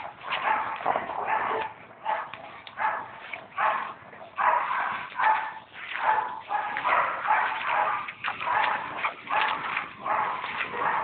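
Dogs barking over and over in short bursts, often more than one a second.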